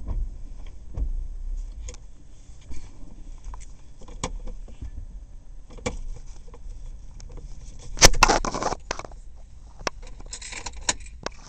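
Ford Escape V6 engine running at a low idle, heard as a low rumble inside the cabin, with handling clicks and a loud jangling clatter, like keys, about eight seconds in and a shorter one near the end.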